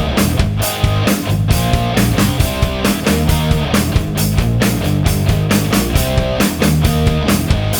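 Background rock music with electric guitar and drums, a steady driving beat.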